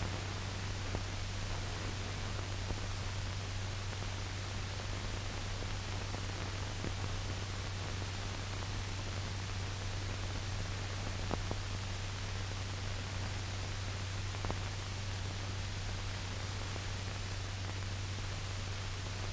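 Steady hiss and low hum of an old optical film soundtrack, with a couple of faint clicks.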